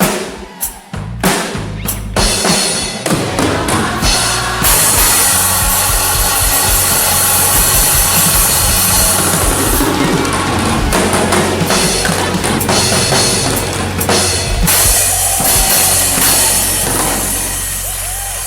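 Drum kit played along with a backing track: a few separate hits, then from about four seconds in a steady, loud wash of cymbals over drums and bass.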